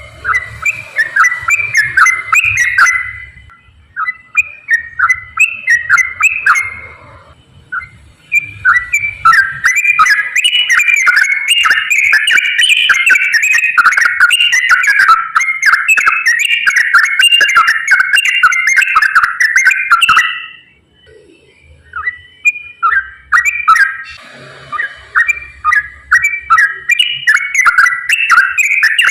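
Sooty-headed bulbul singing a rapid, continuous 'ropel' song of quick whistled and chattering notes. It sings in runs with a few short breaks; the longest run lasts about twelve seconds.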